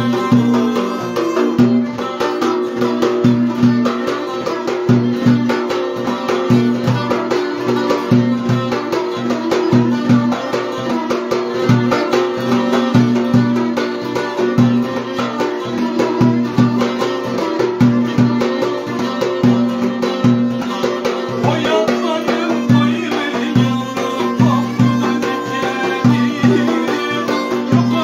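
Turkish folk dance tune (oyun havası) played live on violin, cümbüş and davul. The davul keeps a steady, driving beat of several strokes a second under the violin's melody and the strummed and plucked strings.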